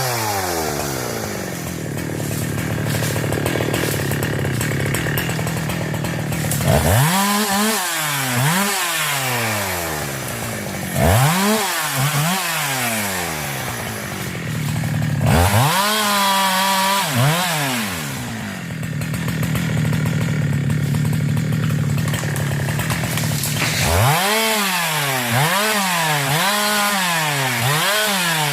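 Two-stroke 372 chainsaw cutting wood: the engine holds a steady, lowered note under load through the cuts, and between them revs up and down in quick swings, four times.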